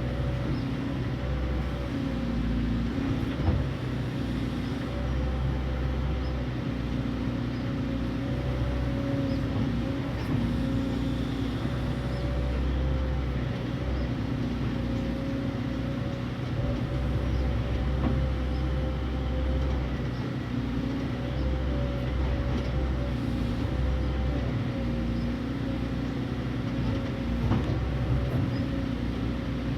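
Excavator's diesel engine running steadily, its low note swelling and easing every few seconds as the machine works, with a couple of sharp metallic knocks.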